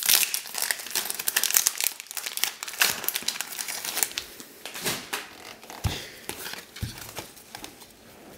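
Foil wrapper of a Japanese Pokémon card booster pack crinkling and tearing as it is opened, dense for the first few seconds. After that comes quieter rustling as the cards are slid out and handled, with two low knocks about six and seven seconds in.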